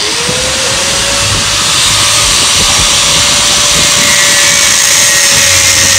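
Angle grinder starting up with a quickly rising whine, then running steadily at speed as its disc cuts into a metal engine part, with a loud hiss of grinding.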